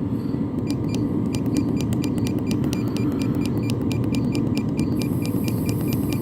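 LF Bros N2 diesel air heater running steadily at about half speed, its blower and combustion giving a low, even rush. A fast, regular light ticking, about five ticks a second, runs over it from about half a second in.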